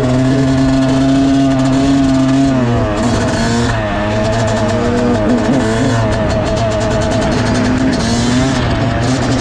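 A 2019 Yamaha YZ250's single-cylinder two-stroke engine running under way on the road. It holds steady revs, drops and picks up again about three seconds in, and does so again around five to six seconds in as the throttle is worked.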